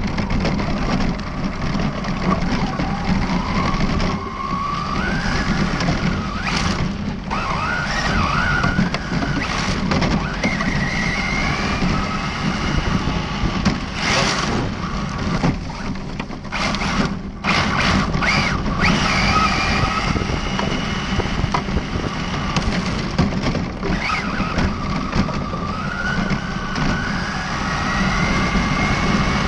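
Brushless electric motor of an ARRMA Felony 1/7-scale RC car whining up in pitch again and again as it accelerates, over the noise of its tyres crunching and sliding on gravel and dirt.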